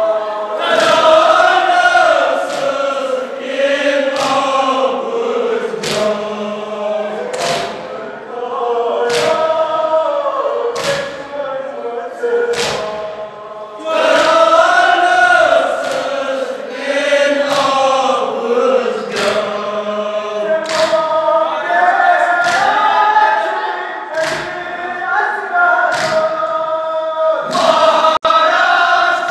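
Crowd of men chanting a Kashmiri nauha (Shia lament) in unison, with a loud, even beat of hands striking chests (matam) about every 1.7 seconds.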